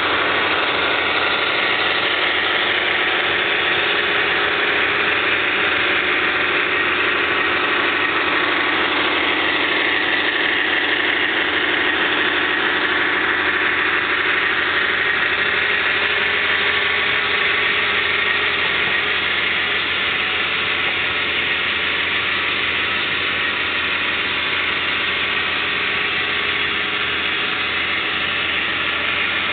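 HO scale model train rolling past close by: a steady running noise from the cars' wheels on the track, with a faint whine that slowly falls and rises in pitch.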